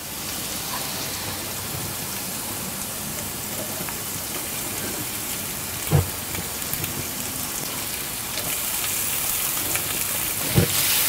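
Chopped aromatics sizzling steadily in hot oil in a wok. A knock comes about six seconds in, as shredded ginger is slid in from a plate, and another comes near the end. The sizzle grows louder over the last few seconds.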